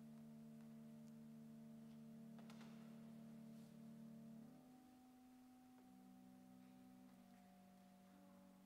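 Faint, soft music of held chords in pure, steady tones, moving to a new chord about halfway through, with a faint click about two and a half seconds in.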